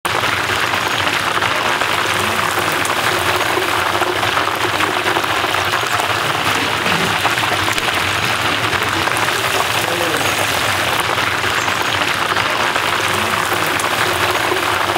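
Battered chicken pieces deep-frying in hot oil: a steady, dense sizzle and crackle of bubbling oil.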